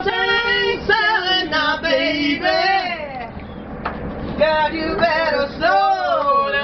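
A woman singing loudly without accompaniment, her voice sliding and wavering in pitch, with a short break about three seconds in. A low rumble of the moving train runs underneath.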